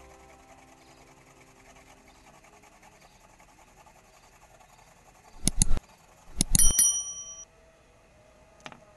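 Subscribe-button sound effect: two mouse clicks about five and a half seconds in, then more clicks and a bright bell ding that rings for about a second, with one more faint click near the end.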